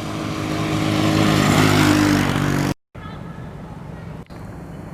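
Motorbike engine running and growing louder over a rising rush of noise, cut off abruptly about three seconds in. A quieter, steady background hum follows.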